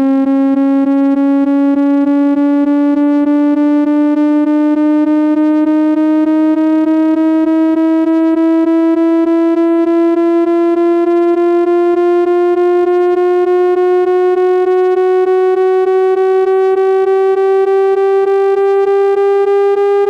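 Computer-generated parabolic-wave tone: a steady electronic note rich in overtones, gliding slowly upward in pitch as a frequency sweep nears its top of 410 Hz.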